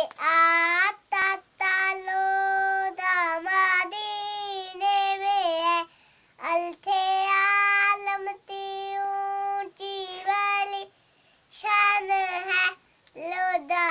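A young girl singing a naat, a devotional poem in praise of the Prophet, unaccompanied. She sings in long held notes with short breaks between phrases, and pauses briefly about halfway through and again near the end.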